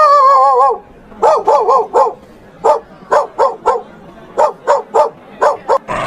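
A dog barking: a wavering, drawn-out howl-like call, then a run of about a dozen short, fairly high-pitched barks in uneven groups.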